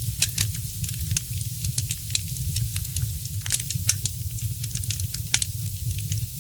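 Wood fire in a fireplace crackling, with frequent irregular sharp pops over a steady low rumble; a couple of louder pops stand out.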